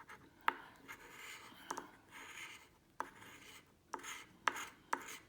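Scratching the coating off a lottery scratchcard: short rasping scrapes broken by sharp clicks as the scratcher strikes the card, about half a dozen times.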